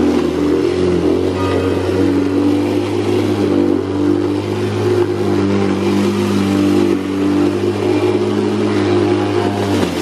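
Makita DLM382 cordless (2×18 V) lawn mower running under load as it is pushed through tall, overgrown grass: a steady motor-and-blade hum that wavers slightly in pitch as the blade meets the grass.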